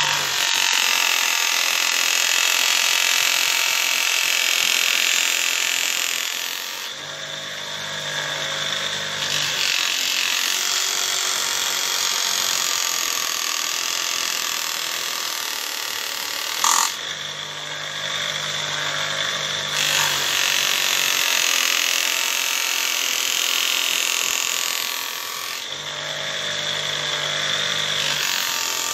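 A knife blade ground against a homemade motor-driven sharpening machine: three long grinding passes with a high rasp, and between them short spells where only the motor's low hum is heard. One sharp click a little past halfway.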